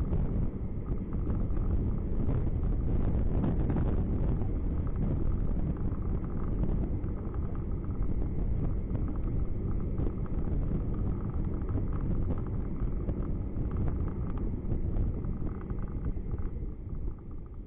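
Car engine and tyre noise heard from inside a moving car: a steady low rumble with a faint hum, easing off a little near the end.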